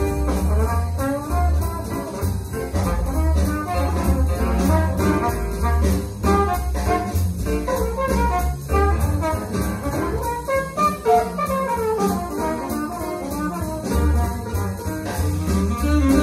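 Brass-led jazz played back through Sierra Classic open-baffle field-coil loudspeakers driven by a Sierra Reference Silver 2A3 valve amplifier, with a continuous deep bass line under the horns.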